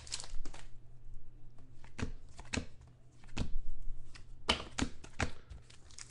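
Trading cards being handled and flipped through by hand: a string of short snaps and clicks at uneven intervals, with a quicker cluster of them near the end.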